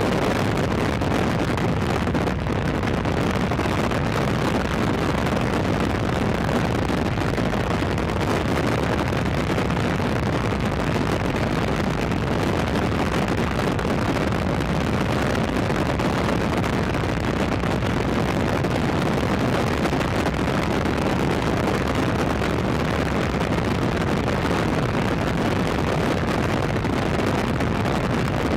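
Steady rush of air over the camera microphone in skydiving freefall: loud, even wind noise that does not change.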